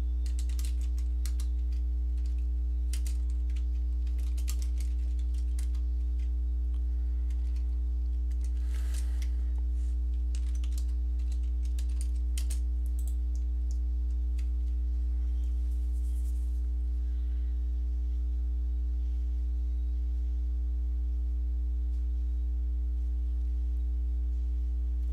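Computer keyboard typing: runs of keystrokes for about the first thirteen seconds, then only a few scattered clicks. A steady low electrical hum lies under it throughout.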